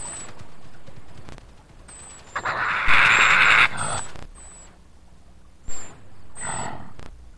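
Prairie dogs giving a series of short, high alarm chirps. Two harsh, noisy bursts cut across them: a loud one from about two to four seconds in and a shorter one near six and a half seconds.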